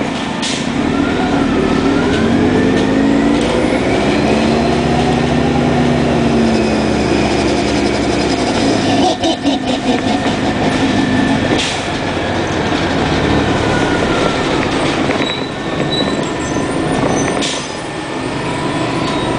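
Orion V CNG bus's Detroit Diesel Series 50G natural-gas engine running under way, its pitch rising and then falling. A short burst of rattling comes about nine seconds in.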